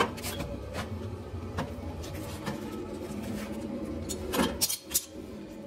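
Carrier 80% gas furnace running with a steady motor hum, with a few sharp clicks and knocks of handling near the start and about four and a half seconds in.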